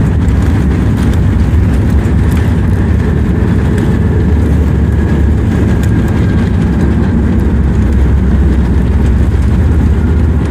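Cabin noise of a Boeing 737 MAX 8 decelerating on the runway just after touchdown: a loud, steady rumble, with a faint whine in the middle.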